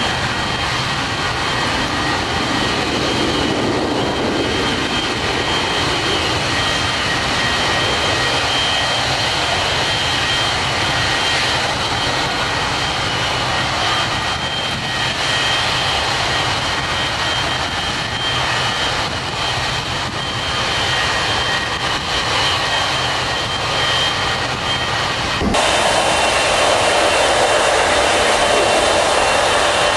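Jet aircraft engines running with a steady high whine over a broad rushing noise. About 25 seconds in the sound cuts abruptly to a louder, steady rushing hiss.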